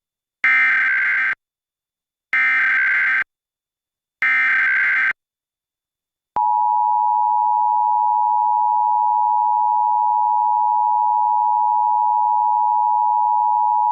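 Emergency Alert System tones: three short bursts of buzzy digital data (the SAME header that codes the alert), each under a second, then about six seconds in the EAS attention signal, a steady two-tone beep at 853 and 960 Hz, which announces the alert message of a national EAS test.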